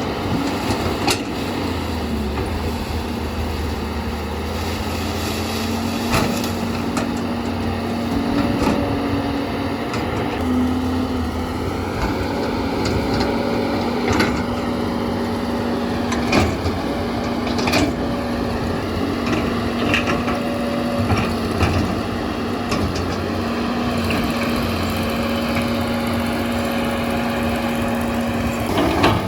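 Heavy diesel machine running steadily with a held whine that breaks off and resumes now and then, over a low rumble, with sharp knocks or cracks every few seconds.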